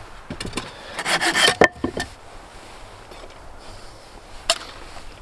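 Hand work scraping and rubbing with sharp knocks, bunched in the first two seconds, then one more sharp knock near the end.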